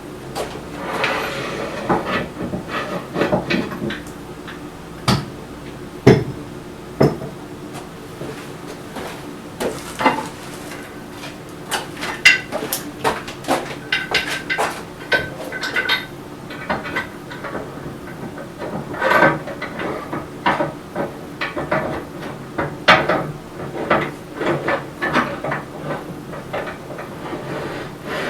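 Metal parts of a Bauer 14x20 midi lathe being handled and fitted: a long run of irregular clanks, knocks and scrapes of metal on metal, a few with a short ring.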